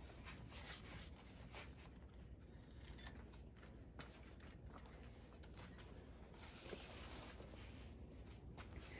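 Faint clicks and light metal handling noises as a measuring rod and hand tools are worked at an engine's cylinder head. One sharper click comes about three seconds in, and a brief rustle comes near seven seconds.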